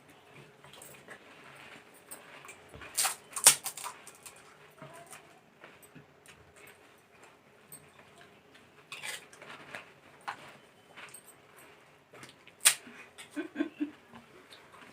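Pani puri being eaten fast: several sharp crunches of hollow fried puris bitten and broken, spread between quieter stretches of chewing. A few short pitched vocal sounds come near the end.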